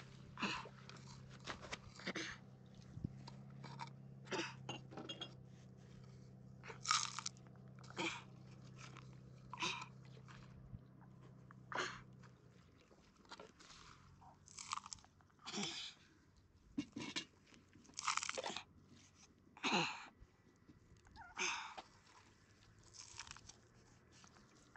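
A series of short, irregular crunching sounds, roughly one a second, some louder than others, over a steady low hum that stops about halfway through.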